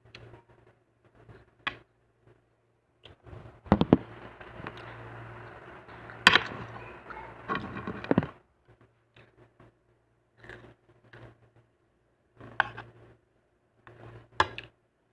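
Close-up eating and handling sounds: scattered mouth clicks and smacks, and from about three to eight seconds in a stretch of rustling and clatter with several sharp knocks as food or a container is handled.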